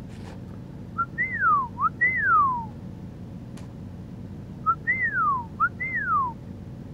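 A person whistling a call twice: each time two whistles that rise briefly and slide down, each led by a short pip, the second call about four seconds after the first.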